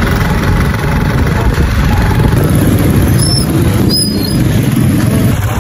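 Motorcycle ride noise: a steady, loud low rumble of wind on the microphone over the running engine.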